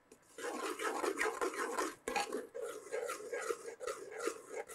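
A ladle stirring and scraping thick mashed urad dal with dissolving jaggery around a pressure-cooker pot, in uneven strokes.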